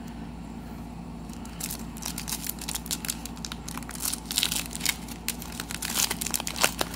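Foil wrapper of a Panini Legacy football card pack crinkling as it is handled and torn open by hand, a rapid irregular run of crackles starting about a second and a half in, over a steady low hum.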